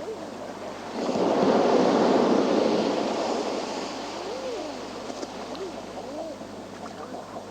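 Sea wave breaking on a rocky shore about a second in, surging loudly for a couple of seconds and then washing back. Repeated short rising-and-falling animal calls sound through it.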